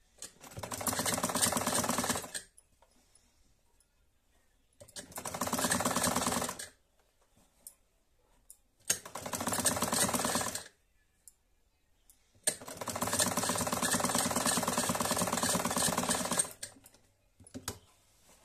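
Domestic sewing machine stitching a seam, joining the sleeve to the kurti body, in four runs with short pauses between: three of about two seconds each and a final longer run of about four seconds.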